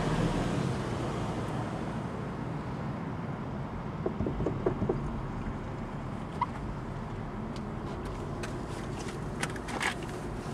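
Steady low traffic hum heard from inside a parked car, with a few faint taps and a brief hiss near the end.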